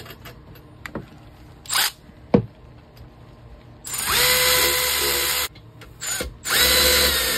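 A few light metallic clinks, then a Milwaukee M12 cordless power tool runs twice in steady whines of about a second and a half each, spinning acorn nuts down onto the intake manifold studs.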